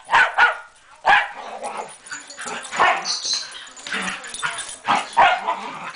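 Two Welsh terriers barking in rough play, a string of short, sharp barks about every second with scuffling in between.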